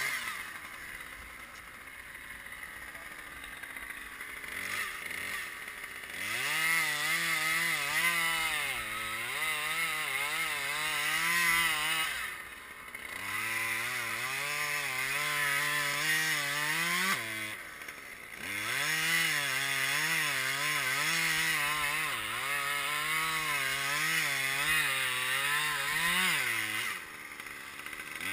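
Two-stroke chainsaw running quietly for about six seconds, then at high revs in three long spells, its pitch wavering as it cuts, with the revs dropping briefly between spells.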